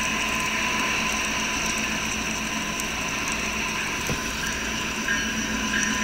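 Approaching freight train led by CN diesel locomotives: a steady rumble and rail noise, heard through a live railcam's audio.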